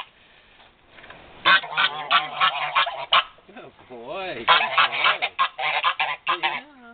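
Domestic geese, an African goose and a Dewlap Toulouse gander, honking. A run of quick honks starts about a second and a half in, pauses briefly, and a second run follows until near the end.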